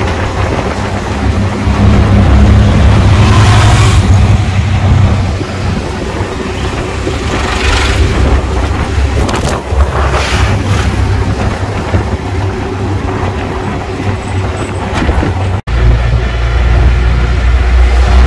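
Car driving on a road: a steady, heavy low rumble of engine and tyres, with a few swells of rushing noise. There is a momentary dropout about three seconds before the end.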